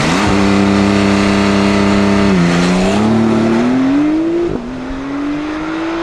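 A Porsche sports car's engine and exhaust revving sharply and holding high revs for about two seconds, then pulling away under hard acceleration, rising in pitch through two quick upshifts.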